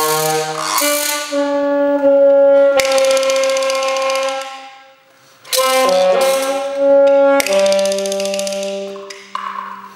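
Alto saxophone playing long held notes in a contemporary piece, some of them rough and noisy in tone. The playing breaks off briefly about five seconds in, then resumes.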